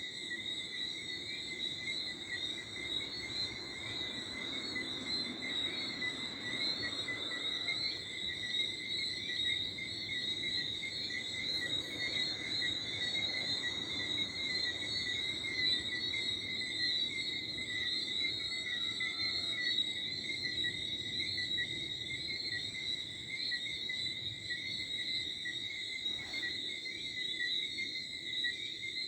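Steady night chorus of crickets and frogs, a continuous high-pitched shrilling that never breaks, with a soft rush of light wind in the trees underneath.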